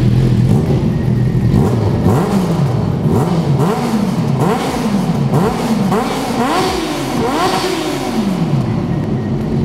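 Yamaha inline-four motorcycle engine revved over and over while standing still, the pitch rising and falling in repeated blips about once a second, ringing back loudly off the walls of a rock road tunnel.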